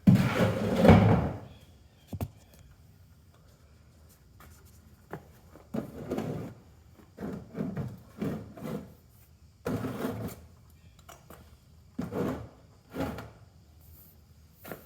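Clattering and knocking of tools and parts being handled during an oil change: a loud clatter right at the start, then scattered knocks and scrapes.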